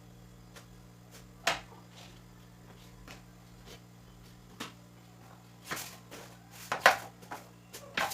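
Scattered sharp knocks and clicks of objects being handled and set down, one about a second and a half in and a cluster near the end, the loudest a little under seven seconds in, over a steady low hum.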